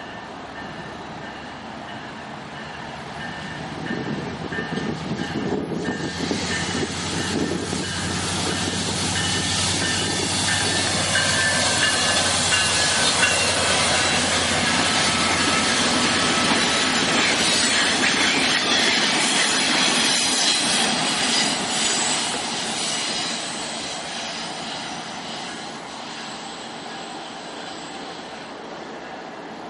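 A diesel-hauled commuter train passing: the locomotive's engine running as it approaches, then the coaches' wheels running over the rails with thin high squeals from wheel flanges on the curve. The sound swells to its loudest about halfway through and dies away as the train recedes.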